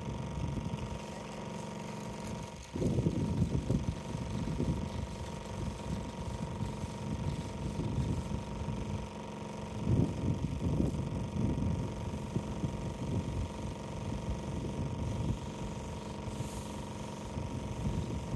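Electric pressure washer running with a steady hum, its lance spraying water onto a rendered wall, with irregular low rumbles over it.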